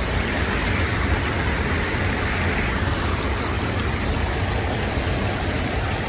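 Shallow, rocky river rushing over small rapids: a steady hiss of flowing water over a constant low rumble, a little brighter in the first few seconds.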